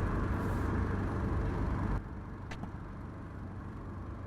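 Steady low road-and-engine rumble of a car driving, which drops noticeably in volume about two seconds in, with a faint click a moment later.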